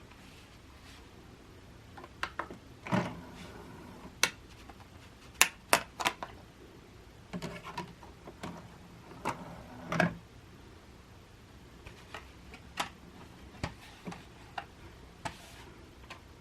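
Hands handling a DVD box set and its booklets: scattered sharp clicks and taps, with a few soft rustles and knocks, irregularly spaced.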